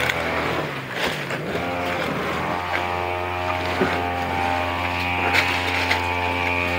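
Small engine running steadily at a constant pitch, which sags and picks back up about a second in, with a few sharp clicks over it.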